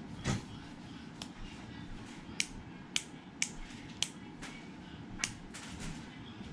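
About eight sharp clicks spaced irregularly over several seconds, a few in quick pairs: the switch of a rail-mount LED tactical flashlight being pressed, toggling it between on, off and flasher.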